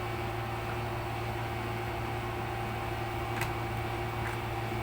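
A steady electrical hum, with a light click about three and a half seconds in and a fainter one shortly after.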